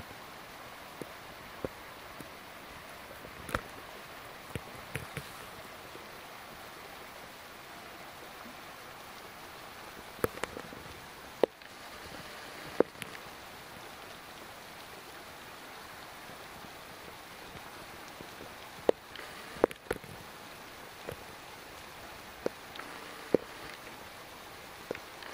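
Steady faint outdoor hiss with sharp, irregular clicks and ticks scattered through it, a dozen or so, some close together in pairs or threes.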